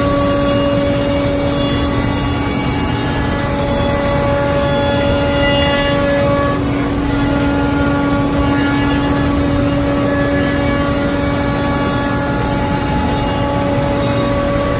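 CNC router spindle cutting a cypress block with a router bit: a loud, steady high whine over cutting noise, with a second, higher tone that drops in and out as the bit works through the wood.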